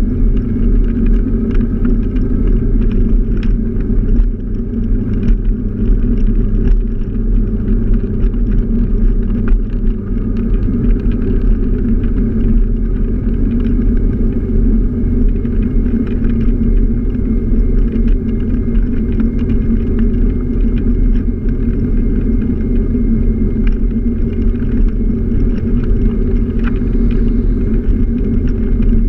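Steady, loud low rumble of a scooter on the move: wind and road noise together with the scooter running, plus small clicks and rattles.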